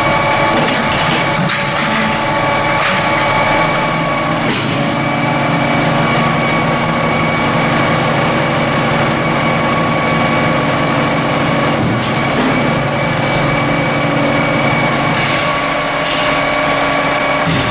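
Heavy machinery running steadily, a constant whine over a low rumble, with a few short knocks about four and a half, twelve and sixteen seconds in.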